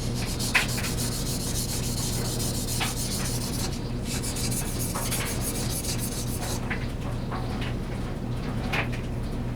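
Steel paring-knife blade being stroked back and forth across a wet King 1000 grit water stone, an even scraping rasp as the tip is sharpened.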